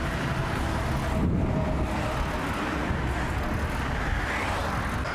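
Steady road traffic noise from cars on the adjoining roadway, a little louder about a second in as a vehicle goes by.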